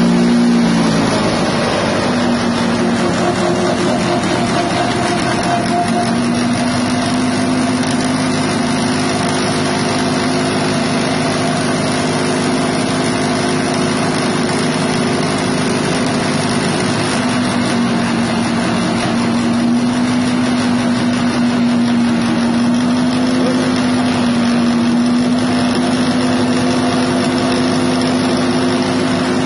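6.5 HP petrol engine of a grass chopper running steadily at a constant speed.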